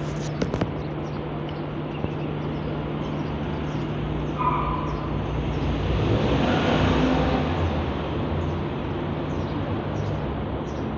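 Street traffic noise with a steady low hum, swelling as a vehicle passes about six to eight seconds in. A short high chirp comes about four and a half seconds in.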